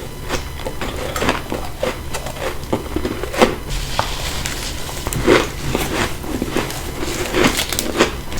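Close-miked crunching of ice being bitten and chewed: a dense run of irregular crackling snaps, with a few louder cracks about three and a half, five and eight seconds in.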